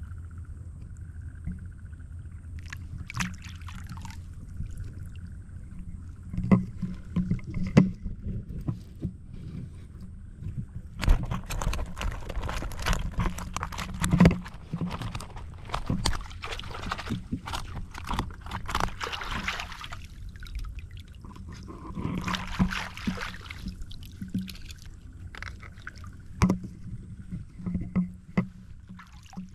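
Water splashing in irregular bursts, with scattered sharp knocks, over a steady low rumble.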